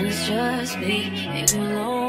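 Background music: a slow song with a sung melody over held bass notes, and a sharp drum hit at the start and again about a second and a half in.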